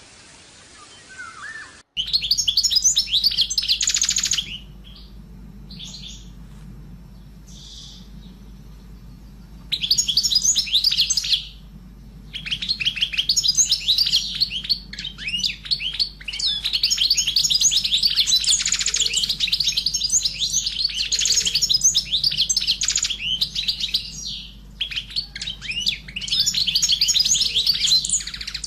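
Pet canary singing long, rapid trills and chirps in several bouts with short pauses between them, starting suddenly about two seconds in, over a low steady hum.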